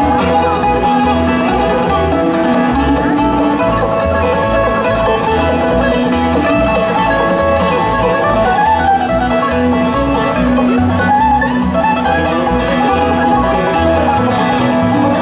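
Bluegrass band playing an instrumental break between verses: plucked string instruments over a steady, rhythmic bass line.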